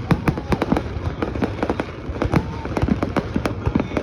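Fireworks going off in a rapid, irregular barrage of sharp bangs and cracks, several each second.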